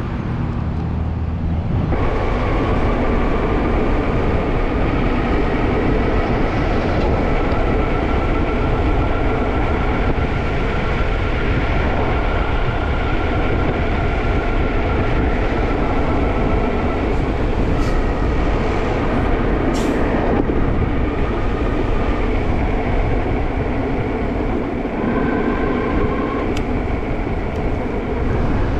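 E-bike disc brakes squealing in a long, held high tone that sets in about two seconds in, drifts slowly upward and shifts pitch a couple of times: the brakes held on a steep descent. Under it is a steady rush of wind and road noise.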